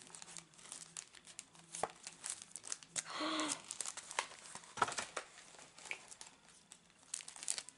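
A small gift pouch being opened and handled: packaging crinkling and rustling, with scattered light crackles and clicks.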